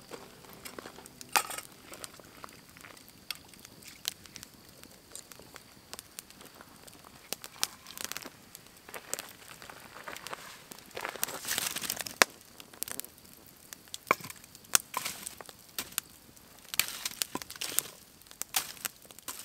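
Wood campfire crackling, with sharp pops scattered throughout and a longer noisy stretch about eleven seconds in. Near the end, the burning wood is shifted and stoked, setting off a cluster of louder pops.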